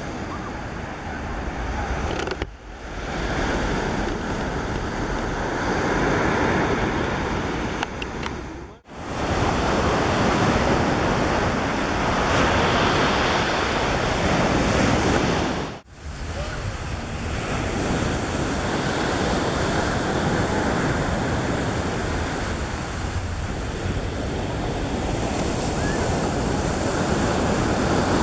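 Wind rushing over the microphone with surf breaking on the shore, a dense steady noise that drops out briefly three times where the recording cuts.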